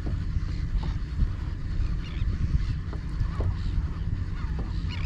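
Flock of seabirds calling in short, scattered cries while they feed over the water, above a steady low rumble of wind and water.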